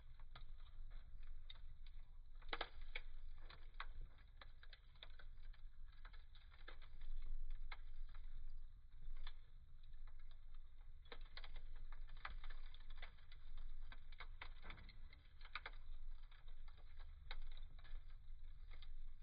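Wood fire in a fireplace crackling, with many irregular sharp snaps and pops over a low steady rumble.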